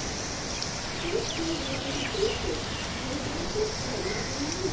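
Steady heavy rain hissing, with a pigeon cooing in repeated low, wavering phrases from about a second in.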